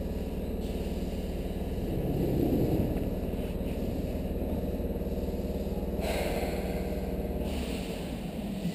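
Seibu 3000 series electric train standing at the platform with its onboard equipment humming steadily. A louder rushing hiss comes about six seconds in, and the low hum drops away shortly after.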